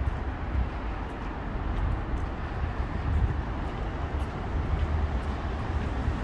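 Steady low rumble of passing vehicles in a city street.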